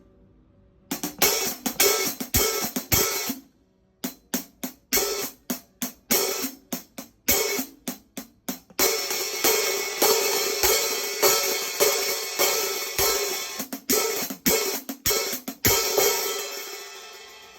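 Zildjian K Fat Hats hi-hat cymbals being played: a quick run of strokes, a short pause, then a string of separate crisp strikes. After that comes about seven seconds of sustained ringing wash with strikes on top, which rings out and fades near the end.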